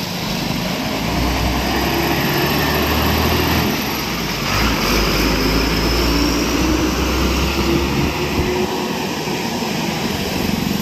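Passenger bus's diesel engine running as it drives past close by and pulls away, a deep rumble that builds about a second in and eases a little near the end.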